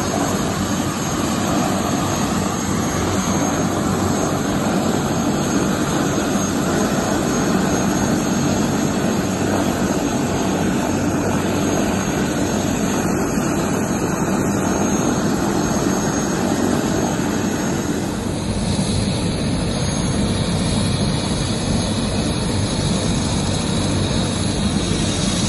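Light helicopter running on the ground, engine and turning rotor making a steady rushing noise. About two thirds of the way in, the tone changes suddenly.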